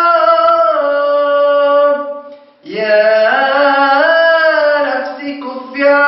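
A solo unaccompanied voice singing an Arabic nasheed, drawing out long melismatic notes, with a short breath about two and a half seconds in.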